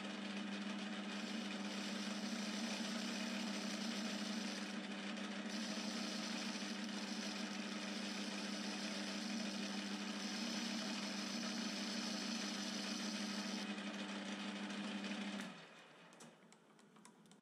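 Metal lathe running steadily with its motor hum while a chamfer is cut slowly on the back corner of a round workpiece, with a hiss from the cut that comes and goes. The lathe stops near the end.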